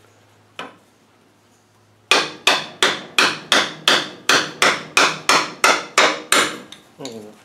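A single knock, then a steady run of about fourteen hammer blows, about three a second, each with a short metallic ring. The blows are driving the seized linkage shaft out of a Land Rover transfer box's high/low linkage housing, which is held in a vise.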